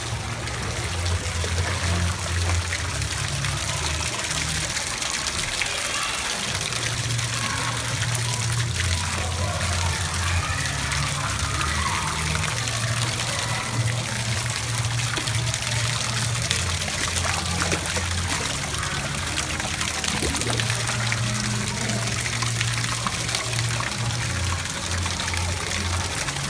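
Water jets spraying steadily from the edge of a shallow pool and splashing into the water. Music with a low, shifting bass line plays underneath.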